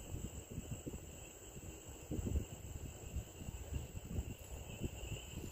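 Quiet outdoor ambience: an uneven low rumble on a handheld phone's microphone, with a faint steady high-pitched whine.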